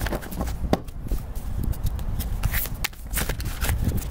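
A deck of tarot cards being shuffled by hand: an irregular run of short papery flicks and slaps, with a low rumble underneath.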